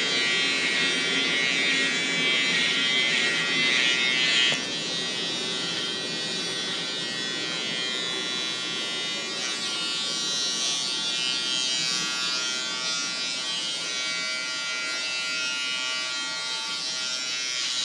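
Handheld battery electric beard trimmer buzzing steadily as it is run over a man's beard and neck stubble. The buzz drops in level about four and a half seconds in, then runs on evenly.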